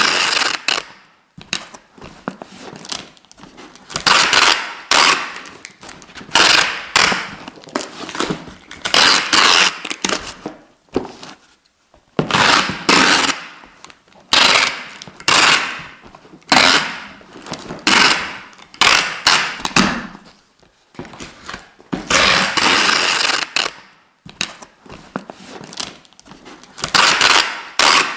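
Adhesive tape pulled off a roll again and again, each pull a loud crackling rip lasting about a second, with short pauses between pulls.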